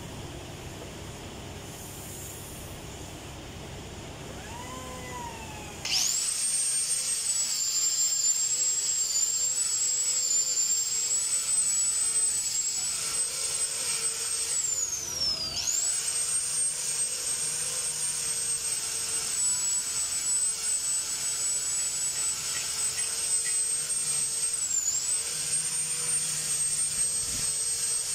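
Handheld electric angle grinder switched on about six seconds in, spinning up to a steady high whine as it grinds hardened gasket off the underside of a KTA50 engine block. Partway through, its pitch sags and it spins back up, and it dips briefly again near the end under load.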